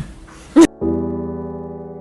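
A brief, loud cry rising in pitch about half a second in, then a cut to a held piano chord of background music.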